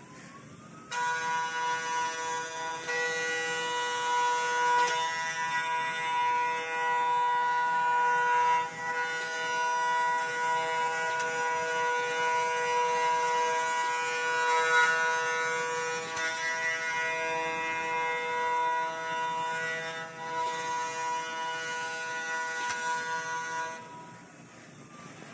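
CNC milling cutter trimming the rim of a die-cast aluminium pan, giving a steady, high, multi-toned whine that holds its pitch. It starts about a second in and stops near the end, with a faint rising tone just before the whine and a falling tone after it.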